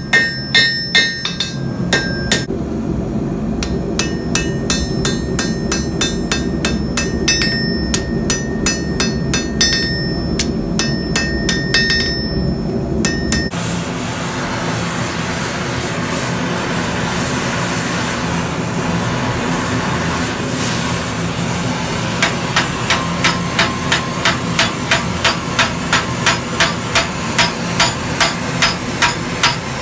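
Hand hammer striking a red-hot steel bar on an anvil in quick ringing blows over a steady low hum. About halfway it changes to the steady hiss of an oxy-acetylene torch flame, with a regular tapping of about two to three beats a second joining in later.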